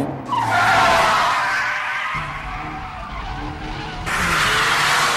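Racing cars' tyres squealing as they slide through a hairpin. There is a long squeal in the first two seconds, then engine hum, and a second squeal starting about four seconds in.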